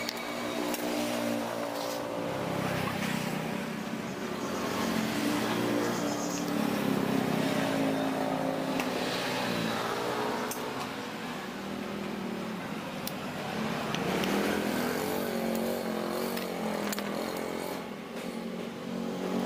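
Engines of passing road vehicles running in the background, rising and falling in pitch, with faint voices at times.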